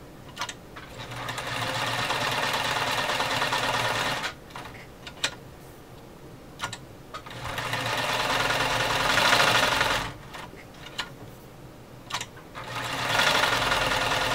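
Omega 307 sewing machine stitching stretch fabric with a regular size 14 needle, running in three bursts of a few seconds each. It starts and stops under the foot controller, with a few sharp clicks in the pauses between runs.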